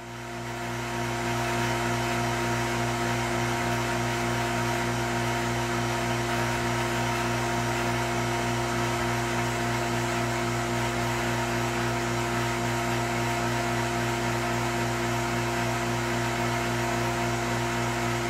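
Homemade breath-fed CO2 laser rig running: a steady electrical hum over an even, fan-like whirring hiss, swelling up in the first second and then holding level.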